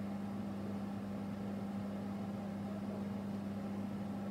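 A steady low hum with a faint hiss and no other sound.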